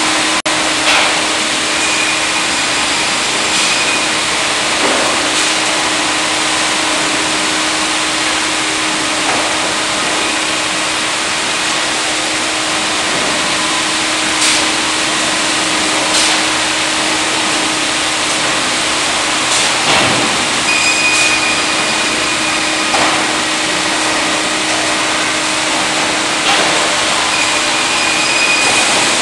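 Sawmill conveyor line running as it carries square-sawn hinoki (Japanese cypress) timbers: a loud, steady machine hum and whir with a dense hiss, broken by scattered knocks of timber on the conveyors and three short high tones.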